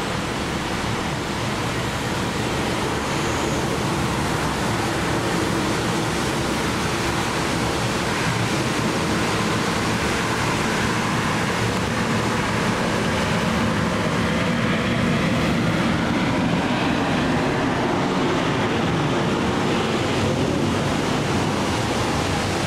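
A Boeing 737 jet airliner passing low overhead on approach, its engine noise a steady rush that swells a little past the middle, with faint gliding whines. Wind buffets the microphone throughout.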